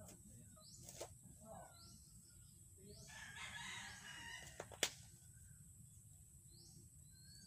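A faint rooster crow about three seconds in, over a high chirp repeating about once a second. A sharp knock near the five-second mark, the shovel striking the ground.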